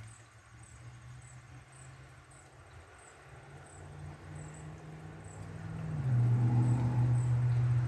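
Crickets chirping in a steady rhythm, under a deep low rumble that swells and turns loud about six seconds in.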